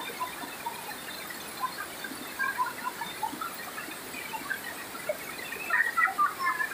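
Rushing water of a wide, rocky river cascade, a steady hiss, with many short high chirps and squeaks scattered over it, busiest about six seconds in.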